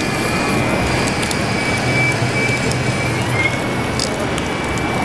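Large-scale RC Caterpillar bulldozer model working, its motors giving a steady high whine over continuous low mechanical noise. The whine dips slightly about three seconds in.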